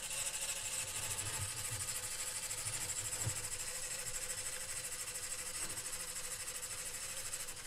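Electric motor drive of a TR900 Trent 900 turbofan model kit running, spinning the model's fan and compressor and turbine stages with a steady, fast whir.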